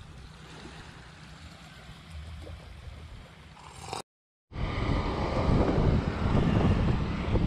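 Quiet, steady wind and shore ambience, then, after a half-second dropout about four seconds in, loud wind buffeting the microphone while riding a bicycle along a road.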